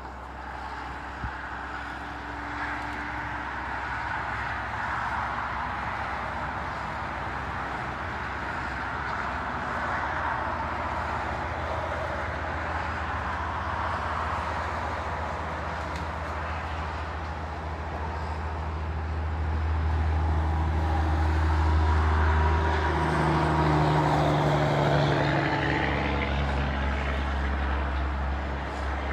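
A large engine running steadily, louder for several seconds from about twenty seconds in.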